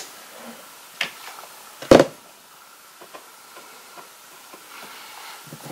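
Hand-tool handling noise as a utility knife scores the insulation of heavy-gauge electrical cable: scattered small clicks and scrapes, a light knock about a second in and a sharper, louder knock about two seconds in.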